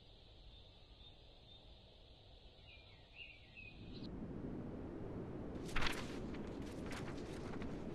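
Quiet outdoor ambience with a faint steady high buzz and a few short bird chirps. About four seconds in, the background suddenly gets louder. Soon after, a sharp porcelain clink is heard, a cup set down on its saucer, followed by a few lighter clinks.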